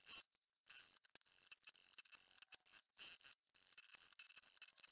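Near silence, with faint scattered ticks.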